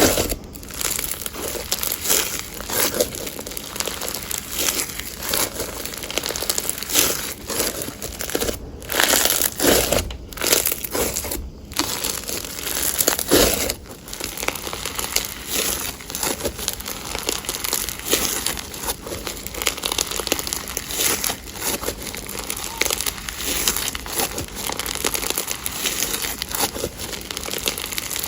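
Slime being pressed, squished and stretched by hand, giving a dense, irregular run of small clicks and pops, with a few brief pauses about a third of the way in.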